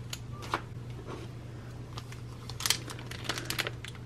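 Clear plastic packaging bag crinkling as it is handled and pulled open by hand, in scattered short crackles that come thicker in the last second and a half.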